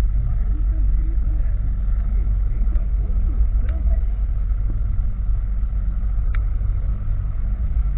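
Honda Titan 160 single-cylinder motorcycle running under way, its engine a steady drone beneath heavy wind rumble on the rider's microphone. A few faint clicks come through, and the exhaust is set up to sound like a BMW G 310.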